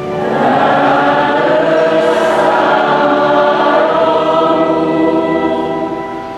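A choir or congregation singing together in church, slow, with long held notes that ease off near the end.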